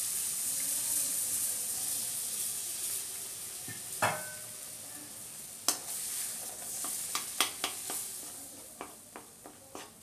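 Cold milk sizzling as it is poured onto hot flour roasted in oil and ghee in a stainless-steel pan, the hiss slowly fading. From about four seconds in, a steel spoon stirs the mixture, clinking sharply against the pan several times.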